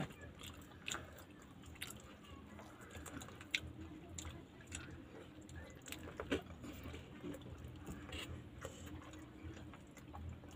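People chewing and eating pizza, with faint irregular clicks and mouth smacks scattered throughout.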